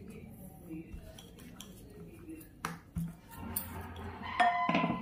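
A rolling pin rolling out a paratha on a plastic-covered chopping board, with a couple of sharp knocks of the pin against the board about halfway through.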